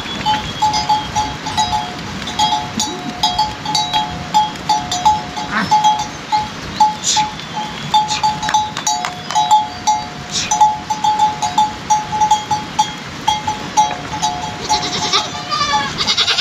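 Bells on livestock clinking in a quick, steady run of short ringing tones, with an animal bleating near the end.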